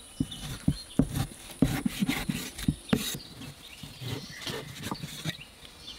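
Steel cleaver slicing through raw pork belly and knocking on a wooden chopping block, a run of sharp, uneven knocks about two a second.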